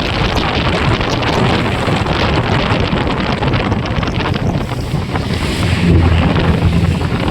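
Wind buffeting the microphone of a moving motorcycle, a dense rushing noise with engine and road noise underneath; a low hum swells near the end.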